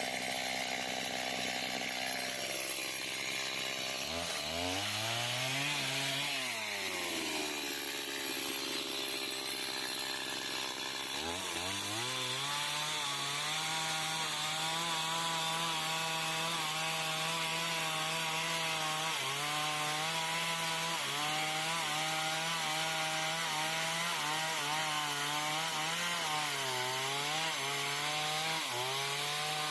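Stihl chainsaw engine revving up and dropping back. It then runs at full throttle with small dips in speed as the chain cuts through a log.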